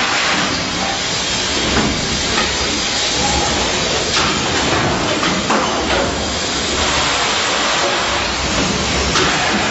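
Production-line machinery running: a steady, loud hiss with a few scattered clicks.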